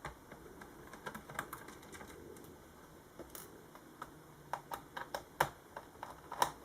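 Small screwdriver clicking and ticking on the battery screws in the plastic underside of a Toshiba Satellite S55t laptop as they are undone. The clicks are light and scattered, with a few sharper ones in the second half.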